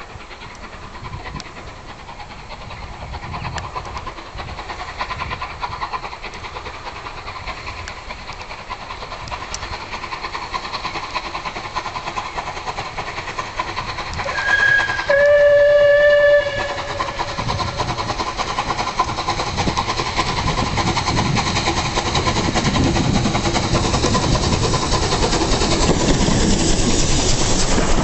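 Rebuilt Bulleid Battle of Britain class steam locomotive 34059 working a train, its exhaust and the rumble and clatter of its wheels growing steadily louder as it approaches and passes close by. It gives one short whistle blast about halfway through: a brief higher note, then a stronger chord for about a second and a half.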